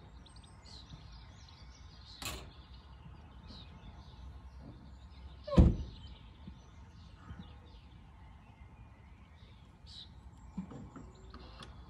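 An SUV tailgate is slammed shut once, about five and a half seconds in, a single heavy thump that is the loudest sound. A lighter click comes about two seconds in, and small birds chirp now and then over steady outdoor background noise.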